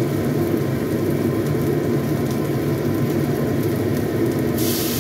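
Sliced shallots and garlic sizzling in hot cooking oil in a pan, with light crackling over a steady low rumble. About four and a half seconds in, a much louder hiss starts suddenly as water is poured into the hot oil.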